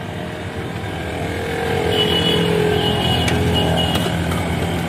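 A motor vehicle engine running nearby with a steady hum, growing louder about two seconds in and then holding.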